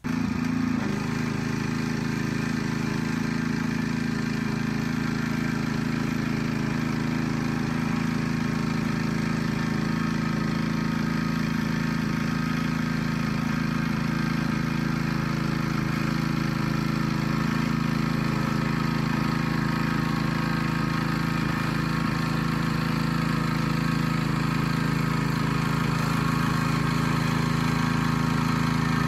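Old rototiller's Briggs & Stratton engine running steadily as the machine tills soil.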